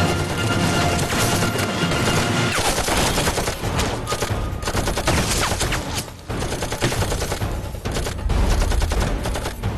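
Dense battle gunfire: rapid rifle and machine-gun fire in quick succession. Music with held notes runs under it for the first couple of seconds, and a deep low rumble swells near the end.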